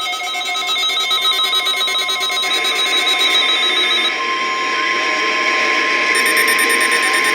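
Emergency alert test tones received over a radio. For the first few seconds there are rapidly pulsed, buzzy tones. From about four seconds in a single steady alert tone takes over: the weather radio's 1050 Hz warning alarm tone, over static hiss that grows louder.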